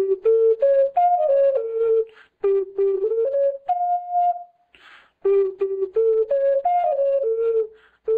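A ram-shaped ocarina playing a short melody of separately tongued notes in a soft, flute-like tone. The player runs one phrase that ends on a long held higher note, draws a quick breath, and then plays a second phrase.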